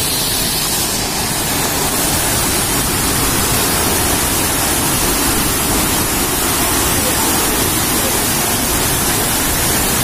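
Steady rushing hiss of a tall waterfall, some 50 m high, plunging into its pool, heard close enough for its spray to reach.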